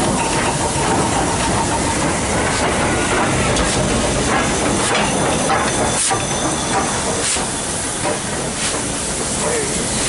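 Steam locomotive giving off a steady hiss of escaping steam, with a few sharp clicks and knocks.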